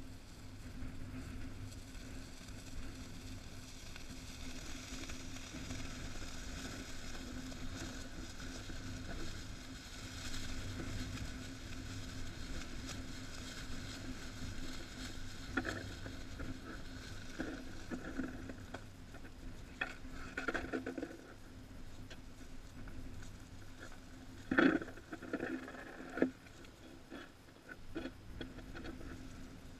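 Rustling and crunching of a foil kite being handled and laid down on crusted snow close by, with footsteps in the snow, over a steady low rumble. The handling noises come in irregular clusters in the second half, the loudest about three-quarters through.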